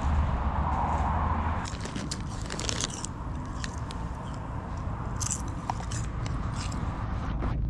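A foil crisp packet crinkling in a hand, in short crackles from about two seconds in, over the steady low rumble of motorway traffic.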